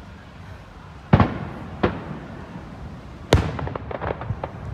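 Aerial firework shells bursting: three sharp bangs, about a second in, near the middle, and the loudest a little after three seconds, the last followed by a quick run of smaller crackling pops.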